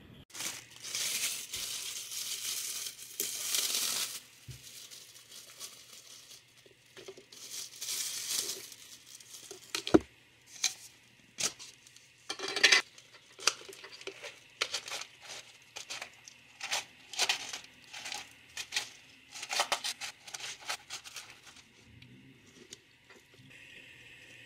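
Packaging crinkling and rustling as it is handled and torn, followed by a run of small clicks and knocks, with one sharp knock about ten seconds in.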